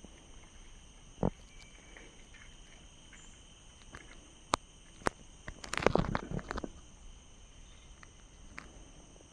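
A nylon gill net being untangled by hand on dry leaf litter: scattered light clicks, then a short burst of rustling and crackling about six seconds in. A steady high drone of forest insects runs underneath.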